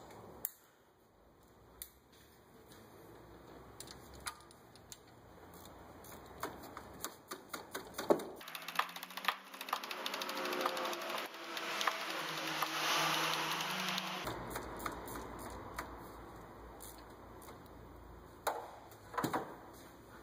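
Socket ratchet clicking in quick runs, with metal tools knocking against the engine, as a spark plug is run down into the cylinder head. The clicking is thickest in the middle and sparser at either end.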